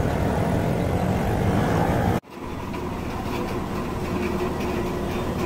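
Roadside traffic and street bustle, cut off abruptly about two seconds in, followed by a steady roar in a street-food kitchen.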